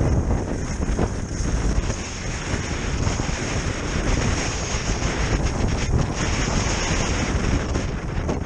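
Wind buffeting the camera microphone while kite-skiing over snow, a rough fluttering rush with a steady high hiss on top.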